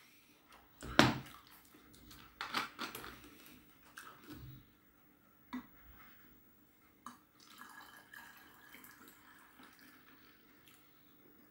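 Beer poured from a glass back into a plastic bottle: faint trickling and dripping of liquid in the second half. Before it come a few knocks and clinks of the glass and bottle being handled, the loudest about a second in.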